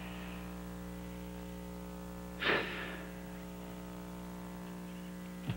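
Steady electrical mains hum, with one short breathy sound about halfway through.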